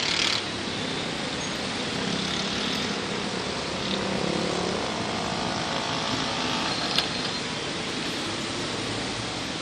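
Road traffic driving through floodwater: motorcycle and vehicle engines running under a steady hiss of water spray. A single sharp click about seven seconds in.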